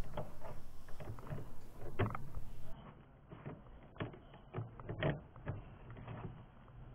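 Irregular clicks and knocks of metal parts and hand tools being handled while an intercooler is refitted in a VW T4 van, with a few louder knocks about two, four and five seconds in.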